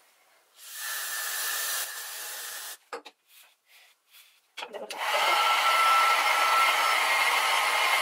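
An aerosol can of hairspray sprayed in one long hiss of about two seconds, then a few short strokes of a hairbrush through the hair. About five seconds in, a hair dryer switches on and runs steadily with a faint whine.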